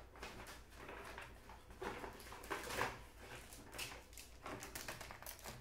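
Irregular rustling, crinkling and light knocks as packaged items are rummaged through and picked up by hand.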